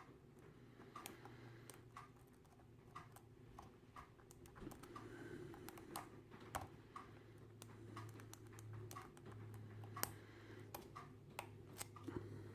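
Faint, irregular clicks and scratches of a thin hook pick working the pin stack inside a cheap brass padlock held under a tension wrench, feeling for the binding pin. A faint low hum runs underneath.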